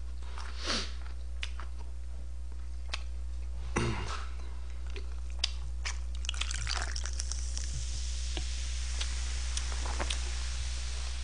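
Coca-Cola poured from a can into a plastic tumbler, a fizzing hiss that builds from about six seconds in and fades near the end. Before it come chewing and small clicks and knocks of handling, over a steady low hum.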